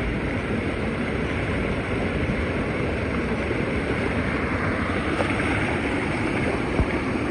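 Debris-laden floodwater rushing steadily down a canyon wash, a dense even rush of water noise with a faint tick or two late on.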